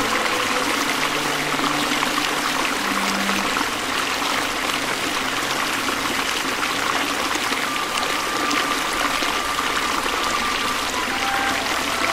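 Shallow rocky stream running over stones: a steady, even rush of flowing water.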